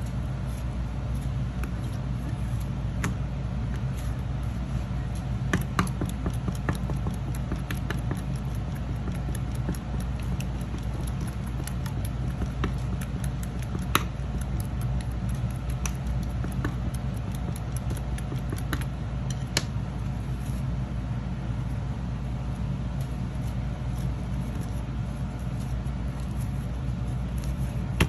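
Clear slime being poked with a straw and folded and pressed by hand, giving many small clicks and pops as trapped air breaks, over a steady low hum.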